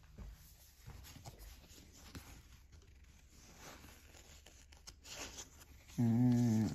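Soft rustling and faint clicks of Pokémon trading cards and a foil booster pack being handled and opened. Near the end a man's voice makes a short, drawn-out wavering sound, the loudest part.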